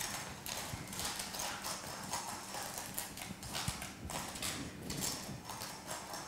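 Metal palette knife scraping and pressing a crunchy coating of tempered chocolate, rice bubbles and chopped caramelized almonds over the base of a pastry tart shell, in a run of short strokes a few times a second.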